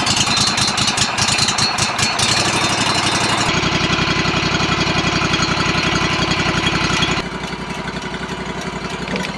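The band sawmill's engine running steadily with an even pulsing beat, just after being started. It gets slightly quieter about seven seconds in.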